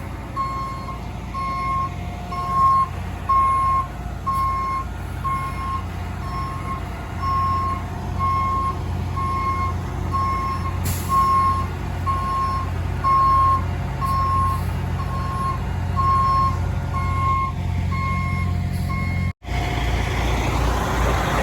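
Backup alarm of a heavy rotator tow truck beeping steadily, a little more than once a second, over its diesel engine's low running as it reverses into position. Near the end the beeping stops and the engine runs louder.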